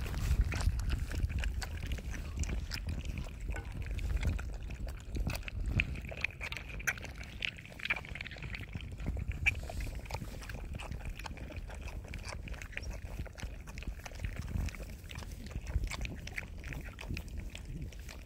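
One-month-old puppies lapping and slurping milk from a bowl together: a rapid, irregular run of small wet clicks.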